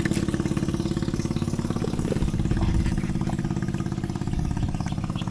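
Small boat engine idling steadily, with a fast, even pulsing beat.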